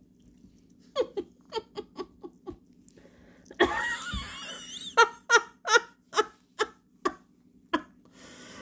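A person laughing in short repeated bursts, with a longer breathy, wavering stretch of laughter about four seconds in and a few more spaced-out bursts after it.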